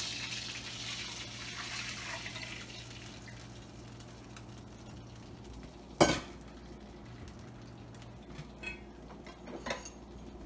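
Orange chicken sauce sizzling as it hits a hot wok, the sizzle dying away over the first few seconds as the sauce settles. About six seconds in there is one sharp clank, and a few lighter knocks follow near the end.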